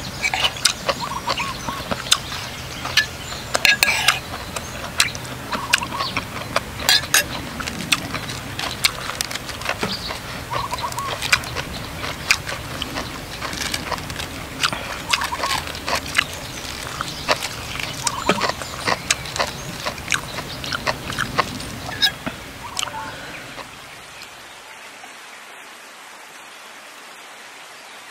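Close-up eating sounds: a metal spoon clinking and scraping on a plate and crisp deep-fried mackerel being chewed, in many sharp clicks. About 24 s in this gives way to a quieter, steady hiss.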